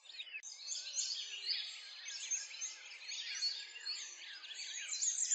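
Many birds chirping and singing at once, a dense chorus of quick high chirps overlapping throughout.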